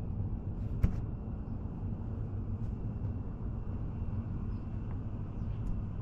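Chinese diesel heater burning waste oil, running with a steady low rumble from its exhaust and a faint high whine above it. A single click about a second in.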